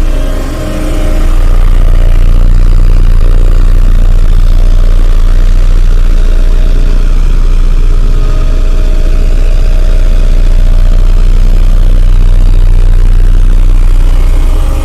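Vibratory road roller's diesel engine running steadily with a strong low hum while compacting sand, the level dipping briefly about half a second in.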